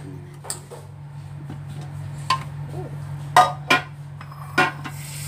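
Hard plastic clicks and knocks as an electric egg boiler is handled, its plug pulled out and its lid and egg tray lifted off: about five sharp knocks, the loudest about three and a half seconds in, over a steady low hum.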